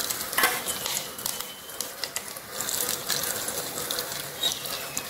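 Hot sunflower-oil tempering of fried shallots and curry leaves poured onto a vegetable curry, crackling with an irregular patter of small sharp pops as the hot oil meets the gravy.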